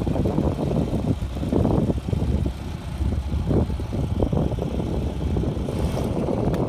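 Vintage Bellanca monoplane's propeller engine running at low power as it taxis after landing, a steady low rumble.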